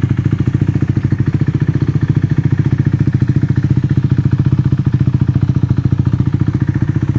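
KTM 390 Duke's single-cylinder four-stroke engine idling steadily through an Akrapovic carbon silencer, a rapid, even beat of exhaust pulses.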